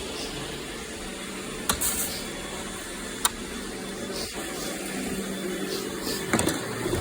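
Robot vacuum running steadily with a low hum, with a few sharp clicks and knocks as it works over the floor.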